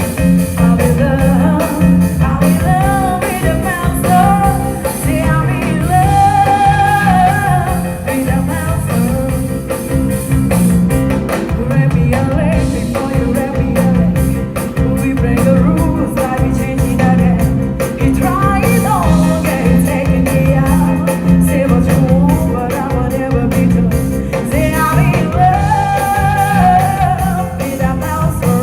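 A song playing: a singing voice over backing music with a steady beat.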